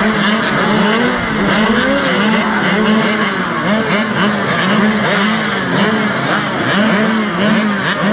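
Several two-stroke mini motocross bikes revving together at the starting gate, their engines rising and falling in pitch over one another as the riders blip the throttles while waiting for the gate to drop.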